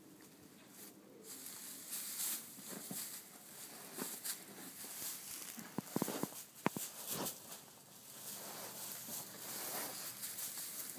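Straw bedding and cloth rustling as animals shift about, with a few short, sharp clicks about six to seven seconds in.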